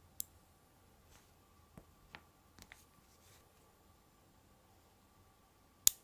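Small 5 mm magnet balls clicking as they snap together: a sharp click just after the start, a few softer clicks about two seconds in, and the loudest click near the end.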